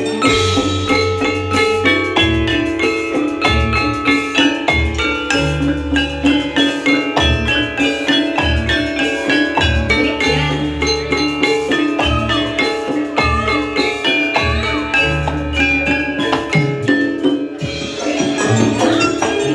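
Javanese gamelan playing a fast jathilan piece: bronze saron metallophones struck with wooden mallets ring out in rapid running notes over a beating kendang drum pattern.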